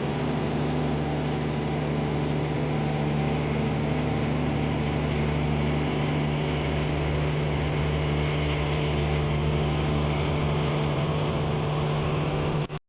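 A boat's engine running steadily at a constant speed, a low even hum with water and engine noise over it, cutting off suddenly near the end.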